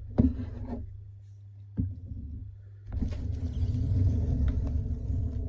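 Handling noise of a Lego Technic motorbike model being moved close to the microphone: two light knocks in the first two seconds, then a low rumble that swells from about three seconds in.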